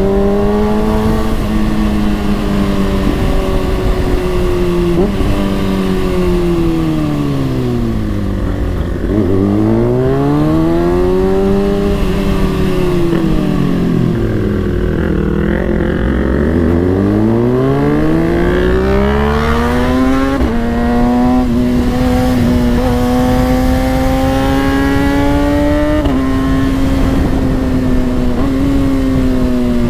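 Kawasaki ZX-6R 636's inline-four engine running, its pitch falling and rising back twice as it slows and picks up again, then holding steady at higher revs with a couple of brief steps in pitch.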